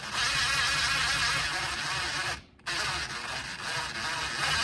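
Power drill-driver running, stopping briefly about two and a half seconds in, then running again, as it turns a dishwasher's levelling leg screw.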